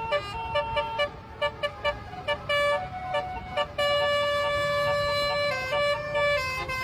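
Basuri multi-tone 'telolet' bus horn playing a melody. It steps between notes, with quick short toots at first and longer held notes through the second half.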